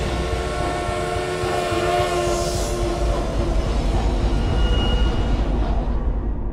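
Steam locomotive whistle holding a chord over a heavy, steady rumble of the train, with a short burst of hiss about two and a half seconds in; the whistle fades after about three seconds.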